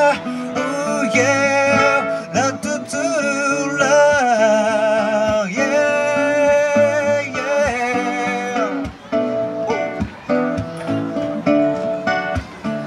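A man singing long held notes with vibrato over a strummed acoustic guitar. The voice stops about nine seconds in, and the guitar carries on alone.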